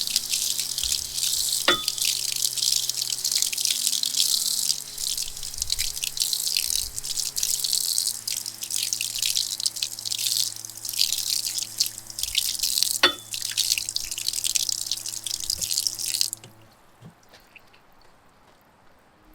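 Hot water running from an outdoor sink tap and splashing over steel handlebars, rinsing off black oxide solution, with two sharp clicks; the water shuts off suddenly near the end. Low held synth notes play underneath.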